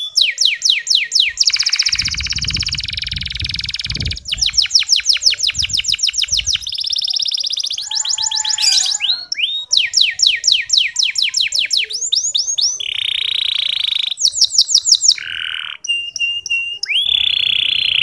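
Male canary singing in the fine rolling ngeriwik style: long fast trills of rapidly repeated sweeping notes, broken by a few short pauses, turning into steadier whistled notes near the end.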